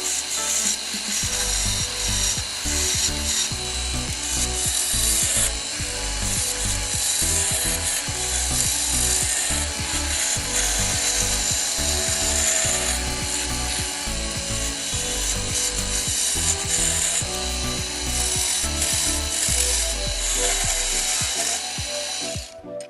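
Woodturning on a lathe: a tool rubbing and rasping continuously against spinning wood. It cuts off abruptly near the end.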